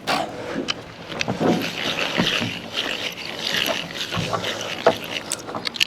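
Irregular knocks, clatter and scraping from hands-on timber framing work, with one sharper strike near the end.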